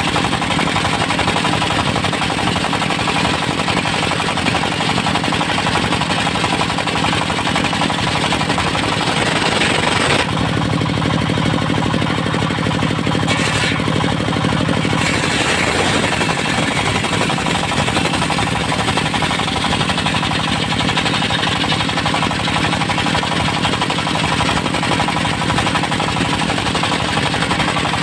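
An engine-driven portable circular sawmill running continuously, with a fast, even engine beat under the saw. The blade sawing through a Mindi log adds a loud hiss, which thins out for a few seconds about ten seconds in and then returns.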